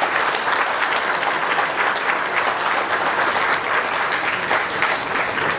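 An audience applauding steadily: many hands clapping together in a sustained round of applause.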